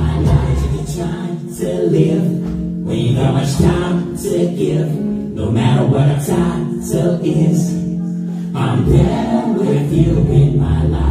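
A man singing a slow song into a microphone over instrumental accompaniment, performed live and amplified.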